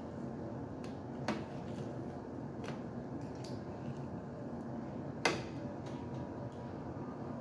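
Light clicks and taps as fingers pick apart a grilled fish on a ceramic plate, the sharpest about five seconds in, over a steady low background hum.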